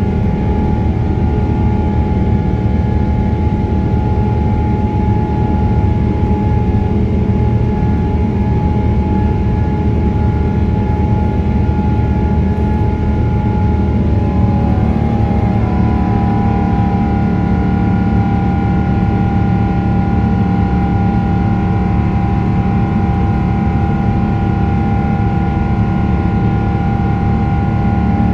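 GE90-115B turbofan of a Boeing 777-300ER heard from the cabin during the climb after takeoff: a loud, steady roar with whining tones over it. About halfway through, the whining tones shift in pitch.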